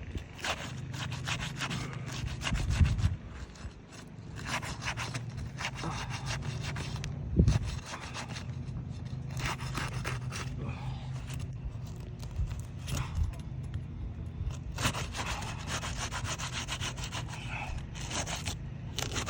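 Sealed asphalt roof shingle being pried loose: repeated scraping and rasping strokes as a tool is worked under the shingle to break its tar seal strip, with a couple of sharper knocks.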